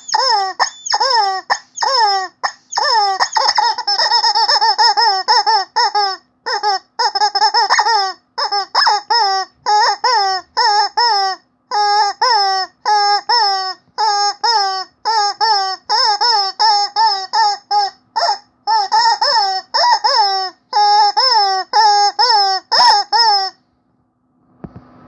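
Rubber chicken squeeze toy squeaking over and over in quick, uneven runs, each squeak a short squawk that falls in pitch. It stops for about a second near the end.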